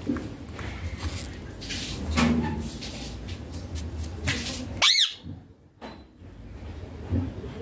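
Baby ringneck parakeet giving one short, shrill squawk about five seconds in, preceded by scuffling and rustling noises.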